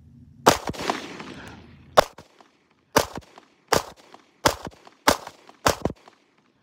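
Walther PPS M2 9mm compact pistol fired seven times at a measured pace: one shot, then about a second and a half later six more, each roughly two-thirds of a second apart.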